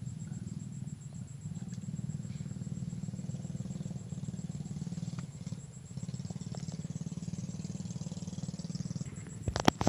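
An engine running steadily as a low, fast-pulsing drone, with a faint thin high-pitched tone over it. A quick cluster of sharp clicks near the end is the loudest sound.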